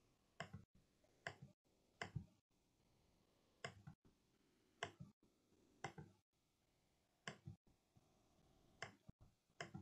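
Faint clicks of a computer mouse, about one every second, many coming as quick double clicks, over near silence.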